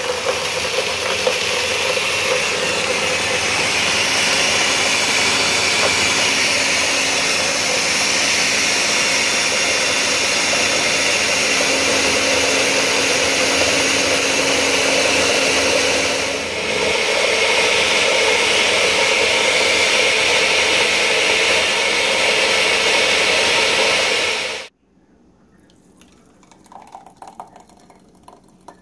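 Countertop blender running steadily at high speed, blending a strawberry and Greek yogurt shake, with a brief dip about two-thirds of the way through. The motor then cuts off suddenly near the end.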